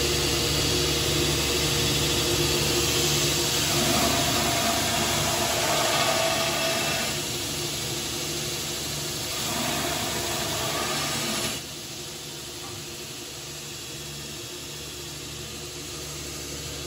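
Belt grinder running with a motor hum while a pattern-welded steel spear head is pressed against the abrasive belt for the rough grind, the grinding sound rising and falling over the passes. About two-thirds through the grinding stops abruptly, leaving a quieter steady running sound.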